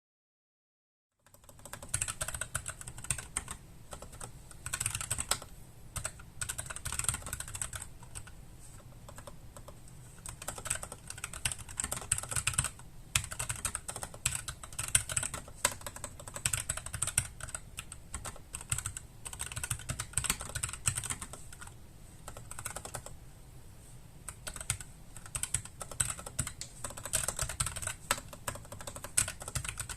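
Typing on a NuPhy Air60 low-profile mechanical keyboard with brown switches: a continuous stream of key clicks and clacks at a steady typing pace, starting about a second in.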